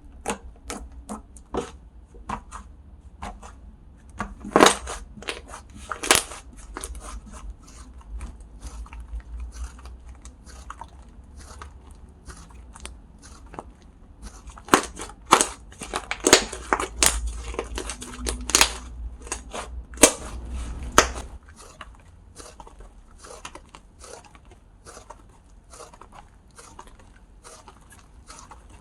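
Close-up handling of slime and its packaging: a run of sharp crackling clicks and crunches, with a few louder snaps about five and six seconds in and a busier stretch in the middle, over a low rumble that stops a little past two-thirds of the way through.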